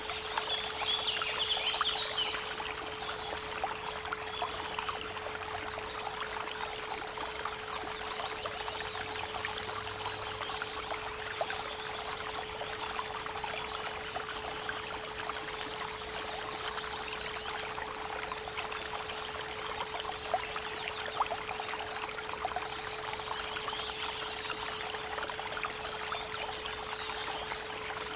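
A creek babbling steadily, with birds chirping now and then, over a steady 432 Hz pure tone held without a break.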